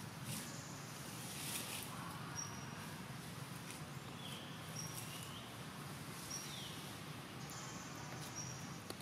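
Outdoor ambience with short, high, thin animal chirps repeating every second or two, a few of them falling in pitch, over a steady low hum.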